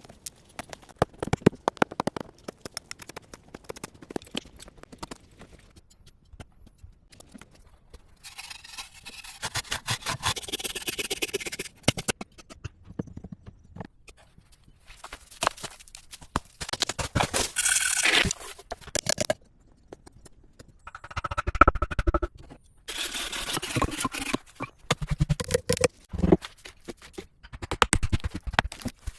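Hand work on wood: a run of irregular knocks and taps, broken by three stretches of scraping or rasping lasting a few seconds each, the loudest about eighteen and twenty-two seconds in.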